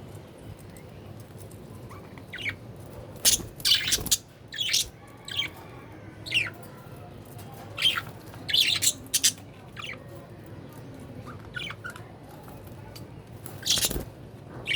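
Budgerigar chirping and squawking in short, sharp calls, bunched in quick runs about three seconds in, around eight seconds in and again near the end.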